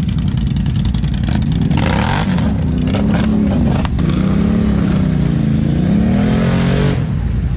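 ATV engine revving, its pitch falling and rising again several times, then dropping off about seven seconds in.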